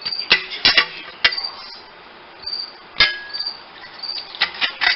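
Sharp metallic clicks and clanks of a metal drywall corner bead being handled and cut: several in the first second or so, a single loud one at about three seconds, and a quick run of them near the end.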